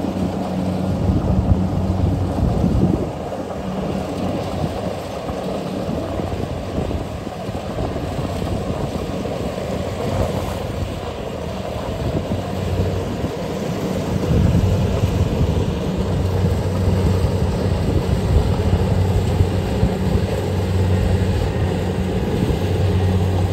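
Kubota DC70 rice combine harvester running under load as it cuts and threshes rice: a steady diesel engine hum over dense machine noise, growing a little louder about fourteen seconds in.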